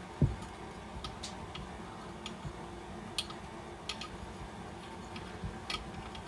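Sparse, irregular light clicks and taps of small metal tools and parts being handled, with one heavier low knock about a quarter second in, over a steady low background hum.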